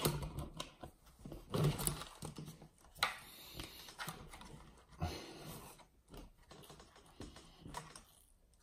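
Scattered clicks and taps of small plastic and metal parts being handled and fitted on a 1/8-scale nitro truggy chassis, with a few short rustling bursts.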